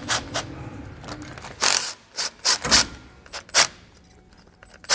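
Hand ratchet with a 1/2-inch socket on an extension loosening the bolts of a sway bar bushing bracket, its pawl clicking in short, irregular bursts.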